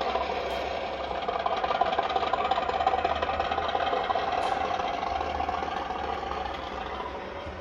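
Recorded Class 50 diesel engine sound running steadily, played by a model locomotive's DCC sound decoder through its small round speaker; it gets gradually quieter toward the end.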